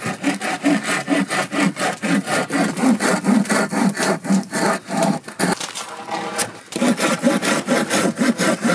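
Red-handled hand pruning saw cutting into a small log in quick back-and-forth strokes, about three a second, pausing briefly a little past the middle before starting again. The cuts mark the sides of a notch that is then chiselled out.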